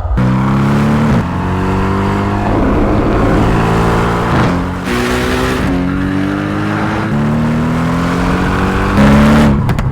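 Mercedes-AMG GT R's twin-turbo V8 accelerating hard through the gears, its pitch climbing and then dropping back at each upshift, several times in a row.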